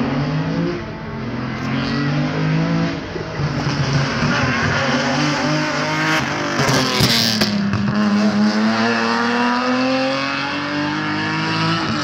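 A rally car's engine revving hard at full throttle. Its pitch climbs in repeated steps as it shifts up through the gears, then there is a loud rush as it passes close about seven seconds in. After that it pulls away with one long rising engine note.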